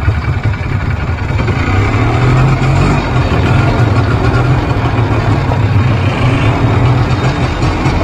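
Two-stroke ATV engine running as the quad pulls away and rides slowly, the engine freshly started and still warming up. The engine note picks up briefly about two seconds in.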